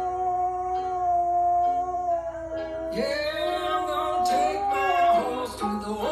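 A dog howling along with music: one long held howl, then wavering howls from about halfway in, mixed with a song with singing and guitar.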